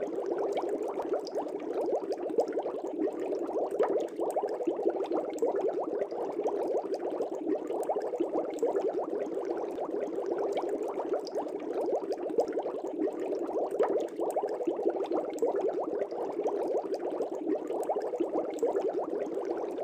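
Aquarium air bubbles rising and burbling steadily in a fish tank, a dense stream of small pops and gurgles.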